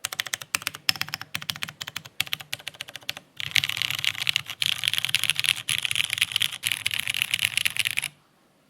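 Typing on a Jane V2 CE custom mechanical keyboard with retooled Cherry MX Brown switches, a carbon fibre plate and an O-ring mount. Short runs of keystrokes give way about a third of the way in to a fast, continuous stretch of typing, which stops shortly before the end.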